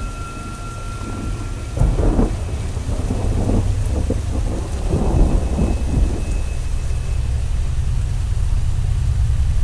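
Thunder rumbling low and steadily over rain, with a louder roll of thunder swelling about two seconds in and rolling on for several seconds.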